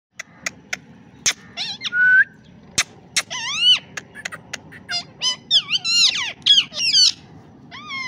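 Rose-ringed parakeets calling: a run of high-pitched squawks that rise and fall in pitch, thickest from about three to seven seconds in, after a few sharp clicks near the start.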